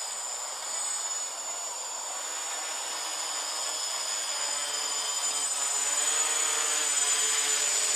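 Gaui 330X-S quadcopter's electric motors and propellers running with a steady high whine and buzz. It grows louder as the quad flies in low and close.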